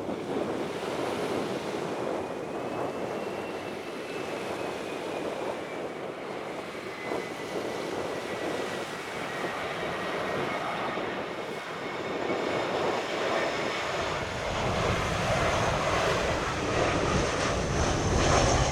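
Wind buffeting the microphone, with the jet engines of an approaching Airbus A320-214 growing louder over the last few seconds. A thin high engine whine slowly falls in pitch early on.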